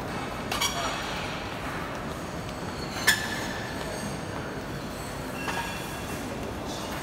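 Steady background noise of a busy lobby, with people walking through it. Sharp metallic clinks that ring briefly come about half a second in and about three seconds in, the second the loudest, and a fainter one near the end.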